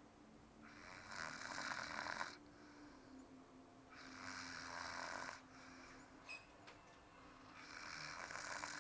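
An elderly woman snoring in her sleep: three long, rasping snores, about one every three and a half seconds.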